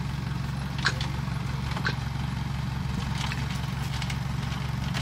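Farm machine engine idling steadily with a pulsing low hum, as workers handle the steel mesh track mats: sharp metallic clinks about one and two seconds in.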